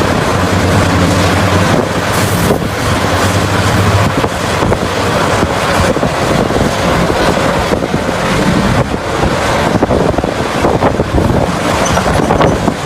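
Heavy diesel mining machinery running loudly. A steady low engine drone in the first few seconds gives way to a rough, rumbling noise with wind buffeting the microphone.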